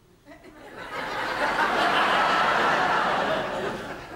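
Theatre audience laughing, swelling about a second in and dying down near the end.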